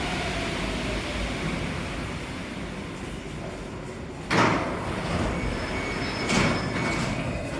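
Automatic MP14 métro train running and slowing, with a faint falling tone. About four seconds in there is a sudden loud burst, and about two seconds later another with a short high tone: the doors sliding open at a station.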